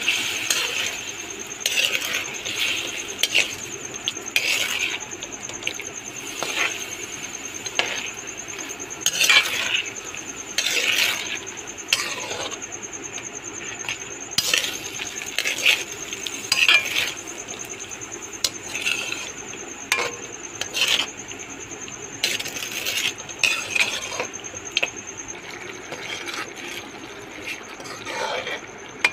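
Metal slotted spoon scraping and stirring mutton pieces in sizzling oil and spice paste in a metal pot, irregular scrapes every second or two over a steady sizzle: the meat and masala being sautéed (bhunai).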